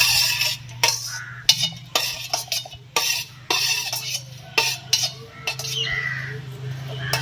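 Steel spoon scraping and clinking against a steel plate and the rim of a steel mixer-grinder jar, knocking fried pirandai stems and garlic into the jar: a quick, irregular run of metal clinks and scrapes.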